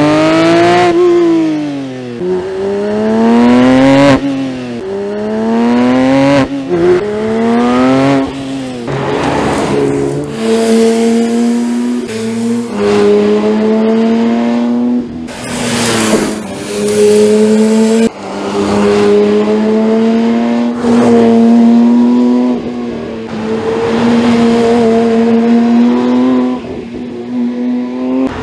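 Porsche 911 S/T's naturally aspirated 4.0-litre flat-six and exhaust at high revs. For the first ten seconds the pitch climbs and drops back about every two seconds as it pulls up through the gears. After that it holds high revs with short lifts and gear changes between corners.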